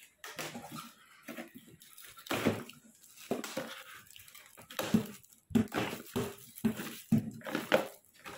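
Plastic stretch wrap crinkling and cardboard packing being cut and ripped away by hand, in a string of short, irregular rips and rustles.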